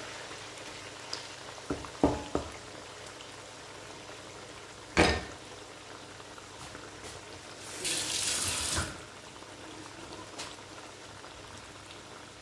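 Kitchen work sounds: a few light knocks about two seconds in, a louder clank about five seconds in, and a kitchen tap running for about a second near eight seconds in.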